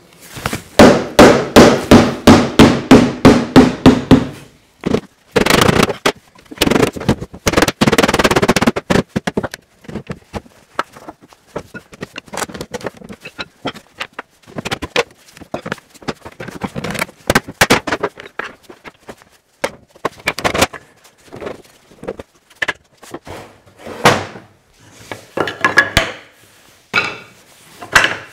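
Hammer blows knocking the joints of an old oak TV stand apart: a fast run of about three blows a second for the first few seconds, a denser stretch of knocking a little later, then scattered knocks and the clatter of loosened oak panels and rails.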